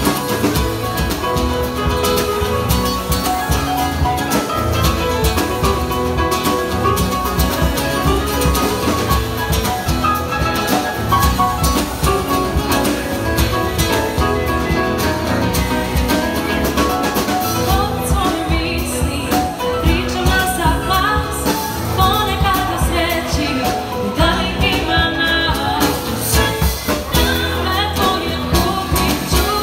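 Live acoustic band playing a song: a woman singing into a microphone over acoustic guitar and keyboard.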